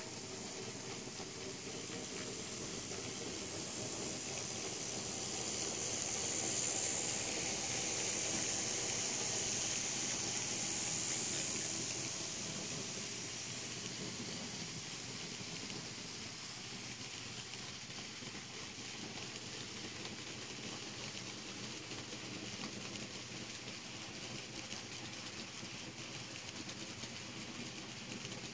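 N scale model train running on its track: the locomotives' motors whirring and the many flatcars' wheels rolling on the rails. The sound grows louder for several seconds partway through, then settles into a steady rolling hiss.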